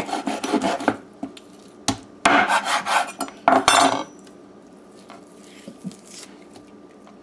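Chef's knife chopping through a raw chicken drumstick onto a wooden cutting board: sharp knocks in the first second, then two louder runs of chopping strokes between about two and four seconds in as the knuckle end is cut off. After that, only faint handling sounds.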